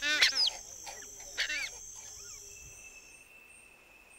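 Forest wildlife sounds: a steady high-pitched insect drone, with a run of rapid chirping calls at the start and another about a second and a half in. The drone cuts off about three seconds in, leaving a faint thin whine.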